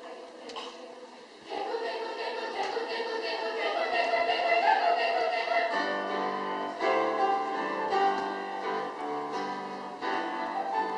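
Children's choir singing with piano accompaniment. It is soft at first; the voices come in fully about a second and a half in, and the piano fills out with lower chords from about six seconds.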